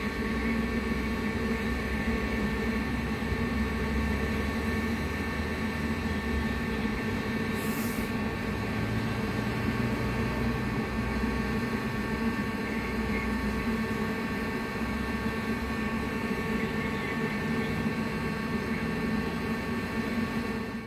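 A steady mechanical hum of several constant tones, over an uneven low rumble, with a brief high sound about eight seconds in.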